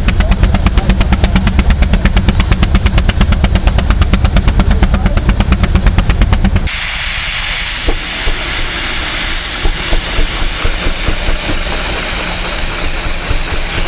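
Baker steam traction engine working hard, its exhaust beating in a fast, heavy, even rhythm, a thumper. About two-thirds of the way in the sound cuts abruptly to a steady hiss over a running engine.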